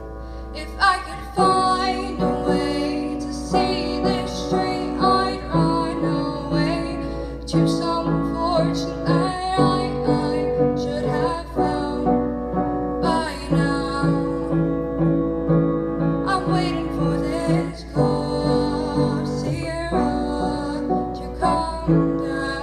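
Music: a woman singing a slow song over a steady, pulsing instrumental accompaniment.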